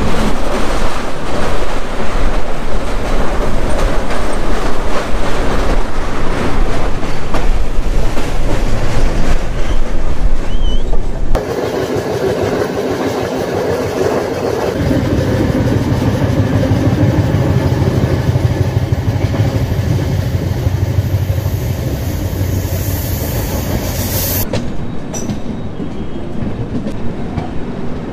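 Passenger train running at speed, with a steady rush of wheel and rail noise. The sound changes abruptly about eleven seconds in and again near the end.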